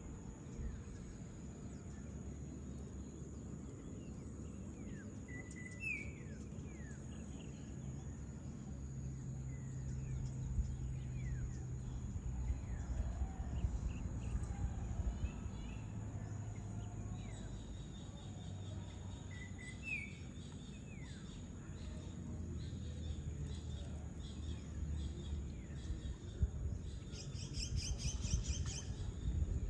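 Outdoor rural ambience: a steady low background rumble with a thin, steady high whine, and birds chirping briefly a few times. A low hum comes and goes, and a rapid buzzing trill sounds near the end.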